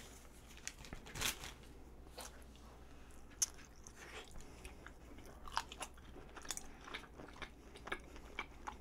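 Faint mouth sounds of a person biting into and chewing a strawberry chapssaltteok, a soft glutinous rice cake filled with sweet red bean paste and a whole fresh strawberry: scattered small wet clicks and smacks.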